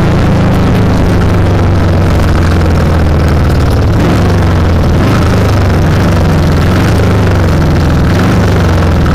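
Engine of the vehicle carrying the camera, running at a steady, unchanging pitch as it rolls slowly along a dirt speedway track. It is loud and close to the microphone.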